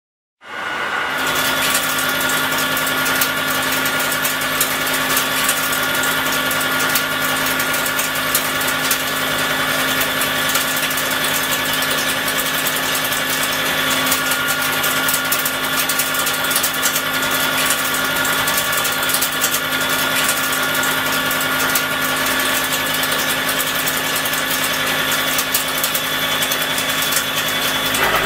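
A CNC milling machine face milling C45 carbon steel with a 125 mm disc milling cutter fitted with indexable carbide inserts, taking a 5 mm deep cut. It comes in about half a second in and runs as a loud, steady hum and whine, with a dense fine crackle from the inserts striking the steel.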